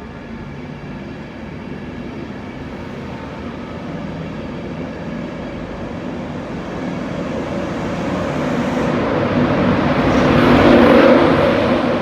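Class 91 electric locomotive and its train pulling away: a steady electric hum and rumble that grows louder, peaks about eleven seconds in, then eases slightly.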